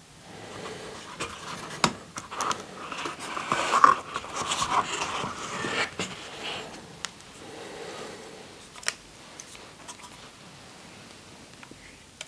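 Handling noise as a folding Japanese saw is lifted out of its foam-lined box and opened: rustling and scraping, busiest in the middle, with a few sharp clicks.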